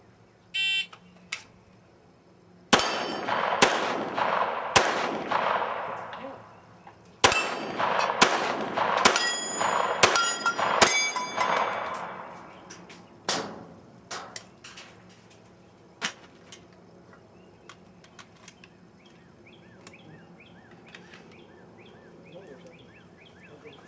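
Electronic shot-timer beep just under a second in. Then rapid gunshots, about three and then a faster run of six or seven, each followed by the ring of struck steel plates. A couple of lone shots near 13 and 16 seconds end the run.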